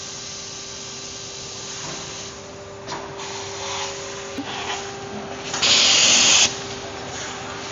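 Sheet-metal production-line machinery running with a steady hum. Softer hisses come and go, and a loud burst of hiss about five and a half seconds in lasts about a second.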